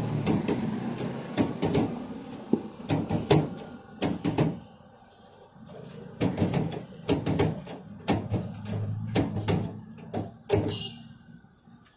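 Hand-lever french fry cutter clunking as its handle is pulled down to press whole potatoes through the grid blade. Sharp knocks come in pairs about once a second, with a short pause near the middle.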